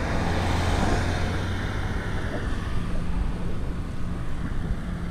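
Car driving along a road: a steady engine drone with tyre and road noise.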